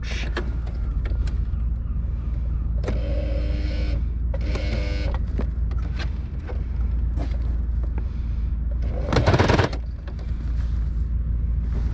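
Singer 4411 Heavy Duty sewing machine motor running in two short bursts of about a second each, a few seconds in, driving the needle in reverse on a zigzag stitch through four layers of heavy sailcloth. The stitches fail to form. Light clicks of the machine are handled between the bursts, and there is a loud short clatter about nine seconds in, over a steady low rumble.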